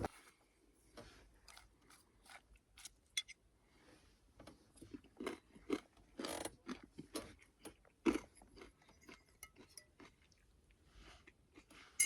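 A person eating a crunchy Thai peanut cashew salad: quiet chewing and crunching in short, irregular bites.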